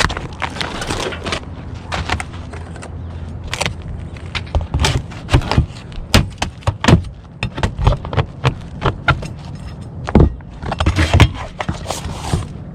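Roof tiles clacking and knocking against one another at an irregular pace, with short bursts of scraping as they are handled.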